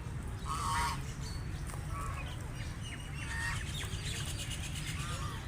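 Wild ducks calling, with a louder call about half a second in and scattered short chirping calls, over a steady low rumble.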